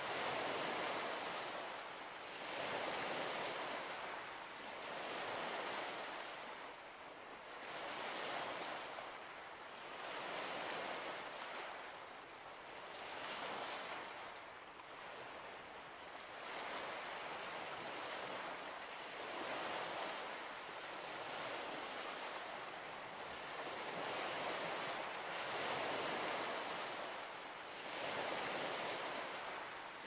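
Small waves washing ashore in a steady rhythm, a swell of rushing water about every two seconds.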